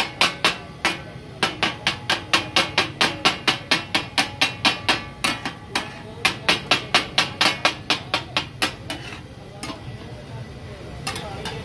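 Metal spatulas striking a large flat iron tawa in a fast, even rhythm of about four to five clangs a second, chopping boneless chicken for taka tak. The clanging breaks off briefly twice and stops about nine seconds in, leaving quieter stirring and frying with a few scattered knocks.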